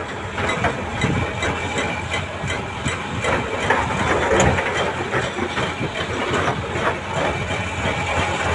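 Heavy diesel engines running steadily: a loaded dump truck driving off over rocky ground with a Doosan DX340LCV excavator working behind it. Scattered clatter and rattles run through the engine sound.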